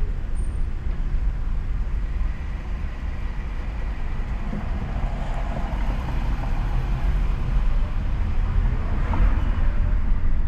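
A car driving, with steady low road and engine rumble and a faint swell of passing noise in the middle.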